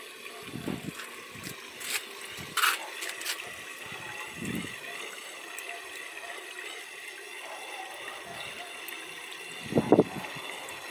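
Steady trickle of running water in an aquaponics fish tank. Over it come a few brief splashes and knocks, and near the end a louder double thump.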